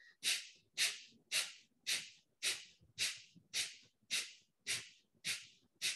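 Kapalbhati breathing: short, forceful exhalations puffed out through the nose, eleven of them evenly spaced at about two a second, with silence between them.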